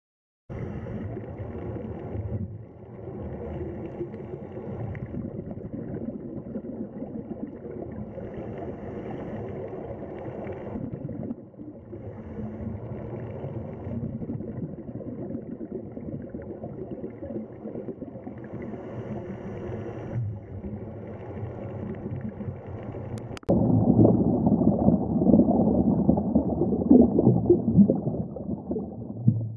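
Muffled underwater ambience from a diving camera: a steady wash of moving water. About three quarters of the way through it cuts abruptly to louder bubbling and churning water as seals swim close past.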